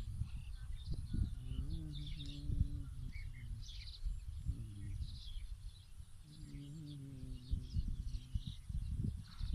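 Small birds chirping and calling here and there, over outdoor ambience with wind buffeting the microphone. A low droning, voice-like tone comes and goes several times underneath.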